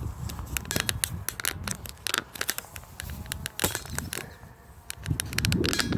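Irregular sharp clicks and scraping, like handling of equipment, over a low wind rumble on the microphone.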